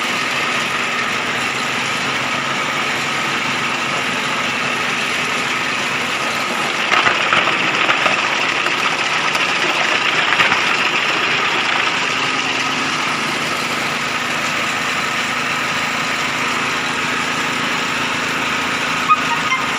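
Chicken feather plucker machine running steadily, with a spell of rattling about seven to ten seconds in.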